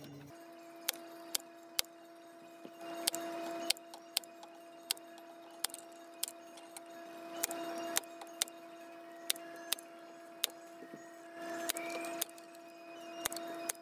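Hand-squeezed staple gun firing staples through grill cloth into a wooden speaker baffle, with sharp snaps about once a second and brief rustling of the cloth and tool between them.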